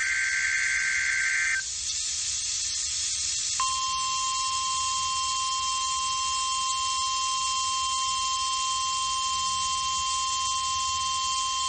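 The last burst of an Emergency Alert System SAME header, a warbling digital data screech, ends about a second and a half in. After a two-second gap of radio hiss, NOAA Weather Radio's steady 1050 Hz warning alarm tone starts and holds for about nine seconds. This tone is what sets off weather-radio receivers and announces the alert message, here a test tornado drill.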